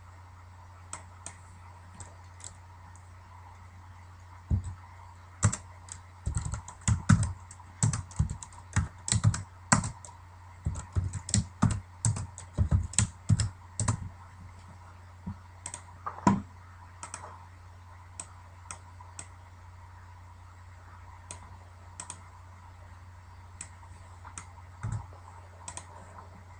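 Computer keyboard typing in quick, irregular runs of keystrokes, dense for about ten seconds from roughly four seconds in, then only scattered single clicks, over a steady low hum.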